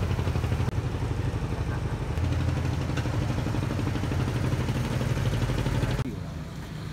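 A boat engine running with a low hum and a rapid, even beat. About six seconds in it gives way to quieter street noise.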